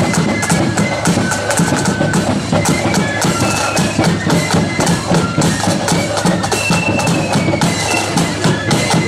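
Marching flute band playing: a high flute melody over fast snare drumming and a steady bass drum beat.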